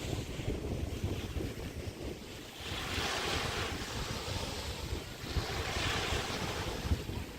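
Small bay waves breaking and washing up the beach, two swells of hiss a few seconds apart. Wind buffets the microphone underneath as a steady low rumble.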